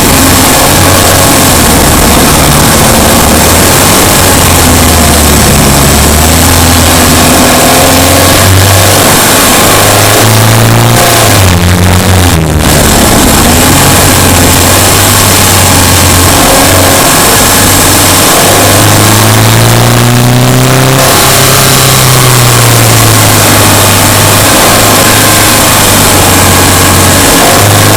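Subaru Impreza Sport's flat-four boxer engine running while driving, its revs rising and falling again and again, over a steady hiss of road and wind noise. A brief harsh noise cuts in about twelve seconds in.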